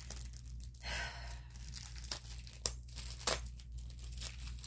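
Clear plastic packaging crinkling and tearing in irregular crackles as it is handled and pulled open by hand, with a louder rustle about a second in.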